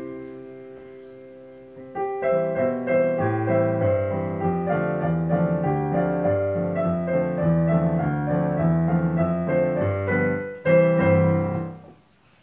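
Piano duet played four-hands on a digital piano: a held chord fades out, then the playing resumes about two seconds in, a melody over a lower accompaniment part. It ends on a final chord about eleven seconds in that dies away.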